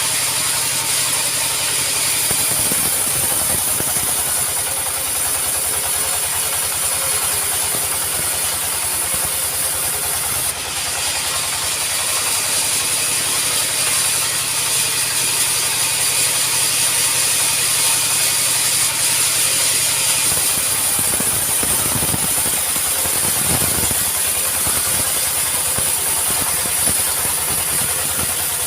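Sawmill running with a steady, rapid mechanical clatter and a constant high hiss over a low engine hum. It is working acacia wood.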